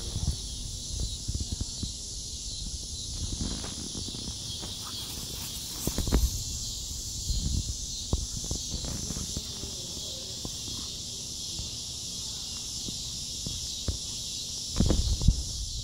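A rough collie and two puppies chasing and wrestling on grass: irregular scuffling and thudding of paws, louder in bursts about six seconds in and near the end.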